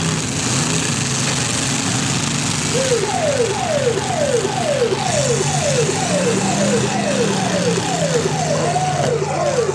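Demolition derby car engines running, with a siren-style alarm joining about a third of the way in. The alarm sounds in repeated falling sweeps, about two a second.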